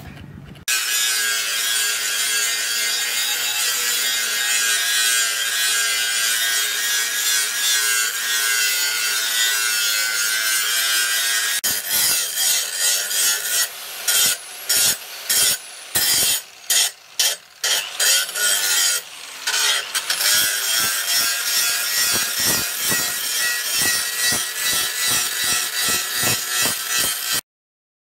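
Angle grinder with a sanding disc grinding the cutting edge of a steel axe head to bright metal. It grinds steadily, breaks into many short bursts partway through, then grinds steadily again before cutting off abruptly near the end.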